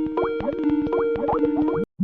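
Digitally altered variation of the Skype ringtone: bubbly pitched notes that each slide up at the start, about two or three a second, over a rapid stutter of clicks. It cuts off abruptly just before the end.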